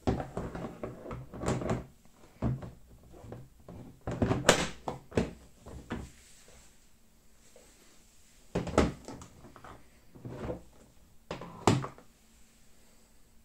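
Hard plastic Milwaukee Packout cases being handled: carry handles flipped and cases shoved and knocked together, giving a series of plastic clunks and clatters with a short pause in the middle. The loudest knocks come about four and a half seconds in and near the end.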